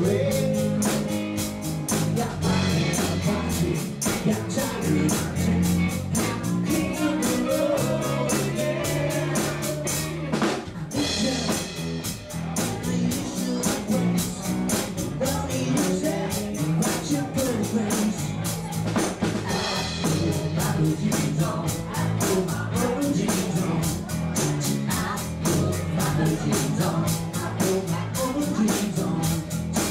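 A live country-rock cover band playing a rock-and-roll number: drum kit keeping a steady beat, electric guitar, and a male lead voice singing.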